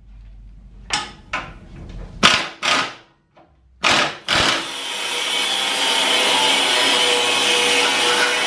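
Hammer blows on a steel go-kart frame, about six knocks in pairs. From about halfway, a handheld grinder cuts into the steel frame with a steady whine.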